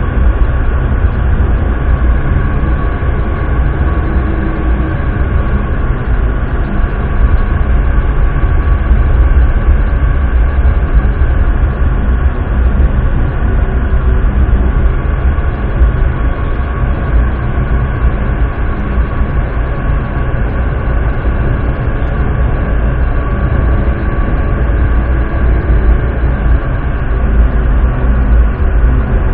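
Driverless metro train running through a tunnel, heard from inside the car: a loud, steady rumble with a faint steady whine above it.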